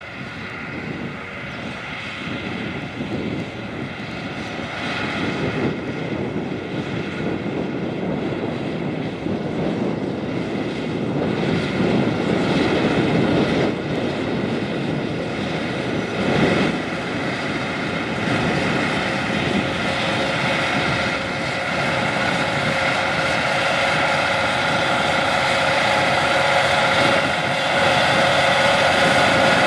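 John Deere 8R 410 tractor engine running under load while pulling a 60-foot DB60 planter, with steady whining tones over the engine noise. It grows steadily louder as the tractor approaches.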